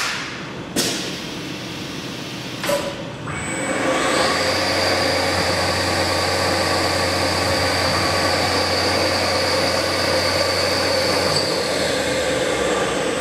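CNC mill toolchanger and BT30 spindle: two sharp mechanical clacks in the first three seconds, then the spindle starts and runs steadily with a constant whine and low hum, easing off near the end.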